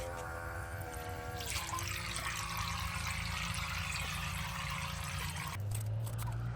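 A few held tones die away in the first second and a half. Then comes a steady rush of water churning and splashing, with a low hum under it that grows strong near the end before everything cuts off.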